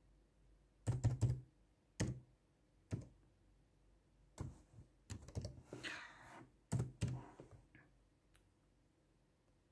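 Faint, irregular clicks and soft knocks, some in quick clusters, like keys being tapped, with a brief rustle about six seconds in.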